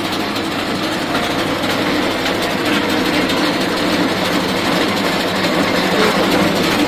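Arecanut dehusking machine running under load, a steady dense rattling clatter as areca nuts are fed in and their husks are torn off.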